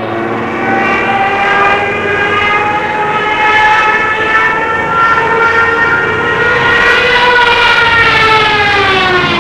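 Twin turboprop airplane engines running as the aircraft flies past, a steady droning whine of several tones. The pitch creeps up slightly, then falls from about seven seconds in as the plane passes and moves away.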